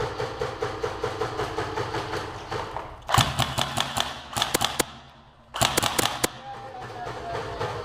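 Airsoft electric guns firing: a steady run of rapid automatic fire, then from about three seconds in, louder sharp shots in quick groups from a gun close by, coming twice.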